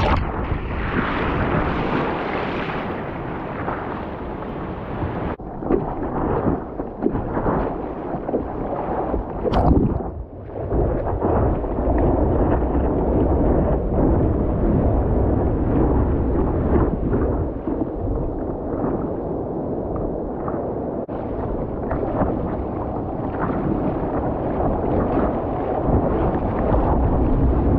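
Choppy sea water sloshing and splashing over the nose of an inflatable stand-up paddleboard and onto the mounted camera, with a deep, steady rumble of water and wind on the microphone. A few sharper splashes come about a third of the way in.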